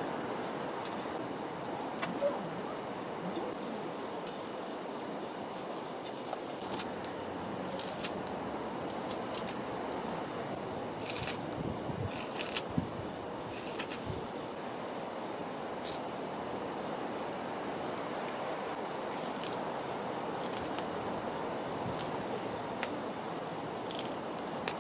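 Steady outdoor background hiss with a faint high, even chirring like crickets, broken by scattered light clicks and knocks, a cluster of sharper ones about halfway through.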